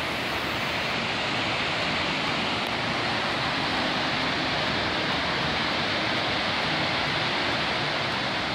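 Iguazú Falls: the steady, unbroken rush of heavy water pouring down the cascades, a dense hiss with no let-up.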